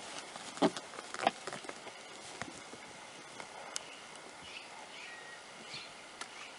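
A baby beaver clambering onto an overturned plastic tub: two sharp knocks in the first second and a half, then scattered light clicks and scrapes as it settles on top. A few faint high chirps come later.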